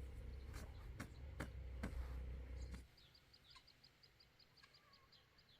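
Low rumble with several sharp clicks that stops abruptly just under three seconds in. After that it is quieter, with a small bird chirping in a quick, even series of about four short high chirps a second.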